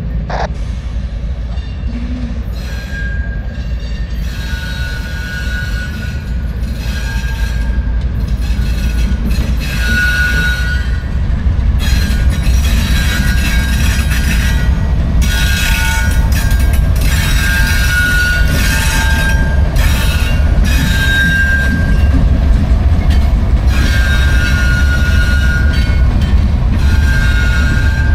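Freight train rolling past, a heavy low rumble that grows louder about twelve seconds in, with short high-pitched wheel squeals coming and going every second or two.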